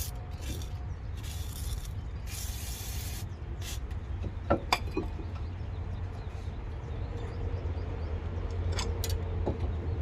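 Aerosol brake cleaner sprayed in two short hissing bursts, the second a little longer, followed later by a few sharp clicks.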